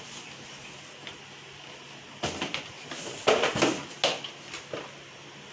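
A cluster of plastic clicks, knocks and rattles from a Brother ink-tank printer as a USB cable is pressed into the cable channel under its raised scanner unit. It starts about two seconds in and is loudest around the middle.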